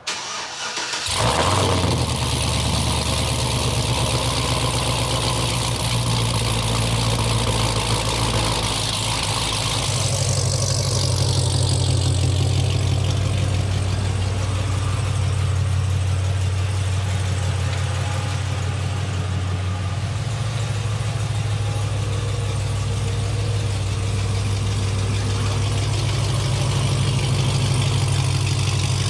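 Supercharged 6.2-litre LSA V8 of a Cadillac CTS-V starting up about a second in, then running with a steady low exhaust note as the car idles and pulls slowly forward.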